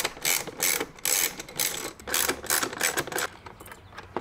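Hand ratchet wrench with an 8 mm socket clicking in quick bursts as it backs off the nuts holding a car door speaker, pausing briefly near the end.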